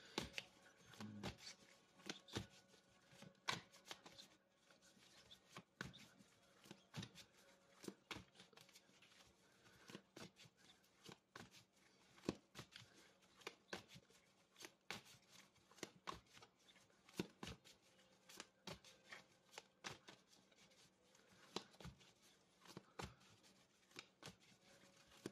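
Deck of tarot cards being shuffled by hand: a faint, continuous run of irregular card clicks, a few a second.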